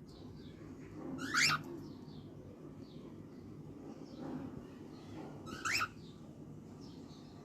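Cockatiel giving two short, sharply rising calls about four seconds apart, with fainter chirps between them, over a low steady background hum.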